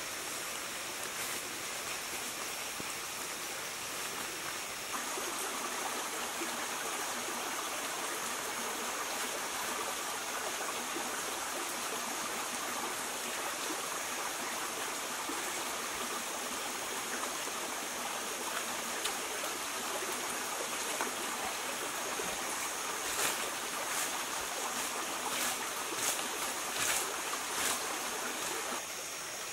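Steady rush of flowing stream water, with a thin high steady tone joining about five seconds in. A run of sharp crackles and clicks comes near the end.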